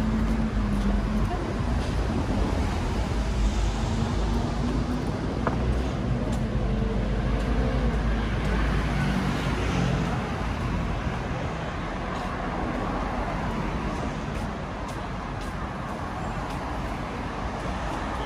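City road traffic: a steady rumble of passing vehicle engines and tyres, louder in the first half and easing off after about ten seconds.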